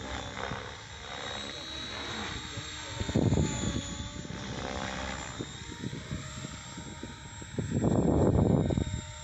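Thunder Tiger E620 electric RC helicopter flying on a 6S lipo pack: a steady high whine from the electric motor over rotor noise, with two louder rushes of noise, about three seconds in and again near the end.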